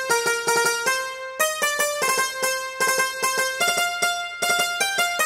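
Background music: a keyboard plays a quick melody in rapid, evenly struck repeated notes that step up and down in pitch.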